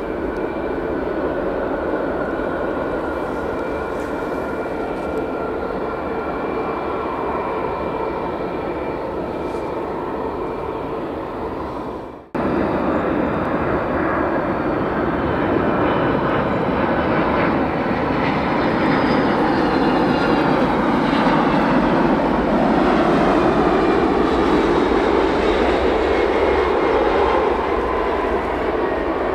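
Jet airliner engines running, a steady rush with whining tones that slowly drift down in pitch. About twelve seconds in the sound cuts off abruptly and another jet airliner's engine noise takes over, growing louder with high whines sliding downward.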